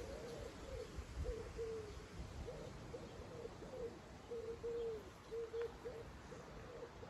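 Strong wind rumbling on the microphone, with a run of short, low hooting notes on much the same pitch, some sliding down at the end.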